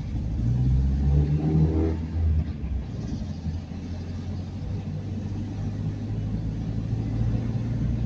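Car engine and road noise heard from inside the cabin while driving slowly: the engine pulls harder for about the first two seconds, then settles to a steady low drone.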